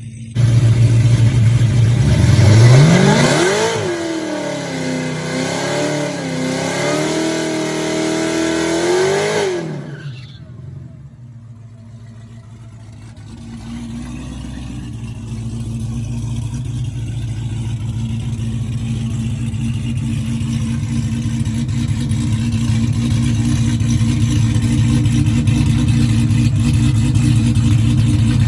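Supercharged V8 of a Charger Hellcat with straight-pipe exhaust, revved hard: the pitch rises quickly, holds and wavers for several seconds, then falls away about ten seconds in. The engine then runs at a steady low note that slowly gets louder.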